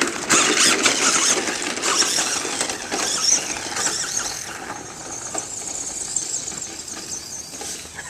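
Tamiya 1:12 scale RC monster truck driving, its brushed electric motor and gearbox whining under throttle, the sound slowly fading as the truck gets farther away.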